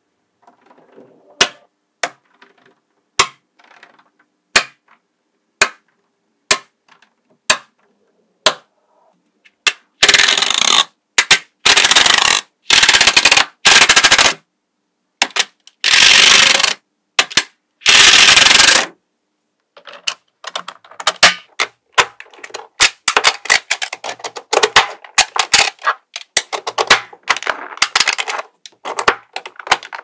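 Mini magnetic balls clicking together. For the first ten seconds there are single sharp clicks about once a second. Then come several loud rattling bursts of about a second each, and after that a dense run of quick clicks.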